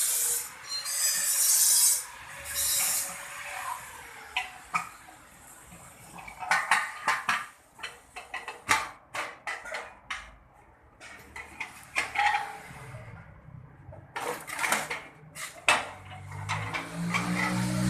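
Metal parts of an es puter ice cream machine clattering and clinking: rasping scrapes at first, then a long string of sharp metal clinks. A low hum comes in near the end.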